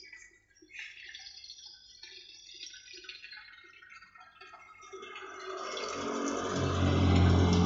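Water trickling and dripping through the PVC pipes of a hydroponic system. Over the last few seconds a louder, fuller sound swells up and covers it.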